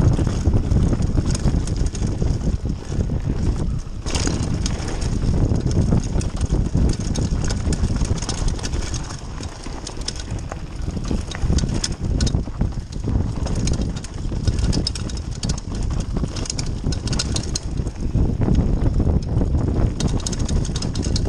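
Mountain bike riding fast down a dirt trail: a heavy rumble of tyres and wind buffeting the microphone, with many sharp rattles and clacks from the bike over rough ground.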